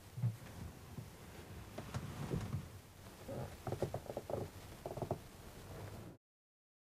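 Quiet footsteps and movement of a person getting up and walking through a small room: soft low thumps, then clusters of short knocks between about three and five seconds in. The sound cuts off suddenly near the end.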